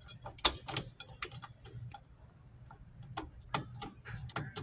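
Metal clicks and clinks of drum brake shoes and return springs being worked and pulled apart by hand. Two sharper clinks come about half a second in, followed by scattered lighter ticks.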